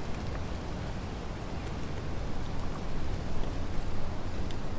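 Wind on the microphone: a steady low rumble, with a few faint ticks.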